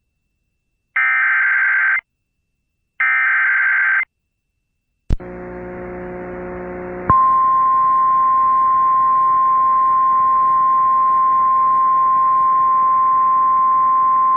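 Emergency Alert System SAME header: the last two of its three one-second digital data bursts, a second apart, then a click and about two seconds of a low buzzing hum. From about seven seconds in comes a single steady high attention tone, the signal that opens a National Weather Service severe thunderstorm warning.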